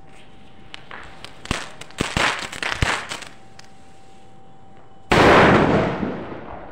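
Firecrackers going off: a string of sharp crackling pops for about two seconds, then, after a short lull, one loud blast about five seconds in that trails off in a hiss over a second and a half.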